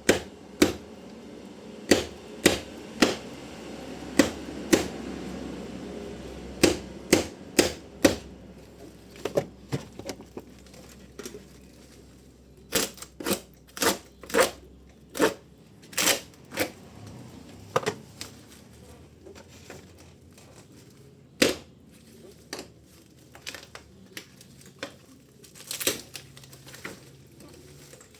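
Irregular sharp clicks and knocks from handling an electric-bike battery and its packaging during unboxing, coming in loose clusters with quieter gaps between.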